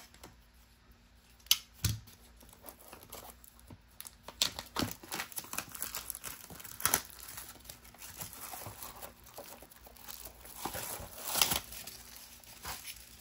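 Plastic shrink wrap crinkling and tearing as it is slit and peeled off a steelbook case, in many short rustles, loudest near the end. Two sharp clicks come about a second and a half in.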